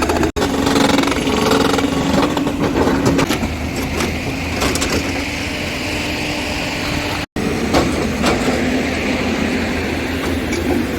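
Diesel engine of a tracked excavator running steadily under load as it works, with a few knocks.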